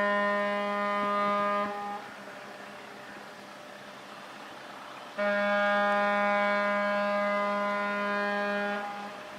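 Ship's horn on a ferry entering port, sounding long steady blasts: one ends about two seconds in, and after a pause of about three seconds a second long blast of about three and a half seconds follows.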